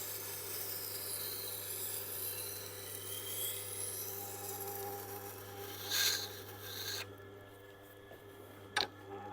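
Tormek T8 wet grinder running, its motor humming steadily while a steel knife edge scrapes across the grindstone, now refined to about 1000 grit so it sounds a little less crunchy. The scraping stops about seven seconds in, leaving the motor hum, with a short click just before the end.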